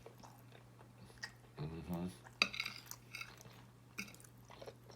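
Close-miked chewing and wet mouth sounds of a person eating, with a short hummed "mm" about one and a half seconds in and a run of smacking clicks just after it.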